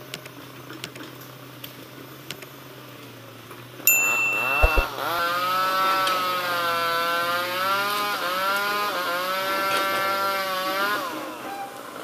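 A low steady engine hum with a few clicks. About four seconds in, a much louder engine cuts in, its revs rising and falling again and again until it fades near the end.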